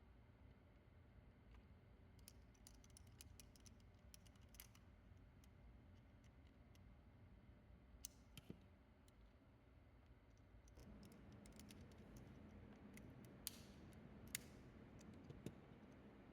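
Faint, scattered small clicks and ticks of hard plastic toy parts being handled, with a few sharper snaps.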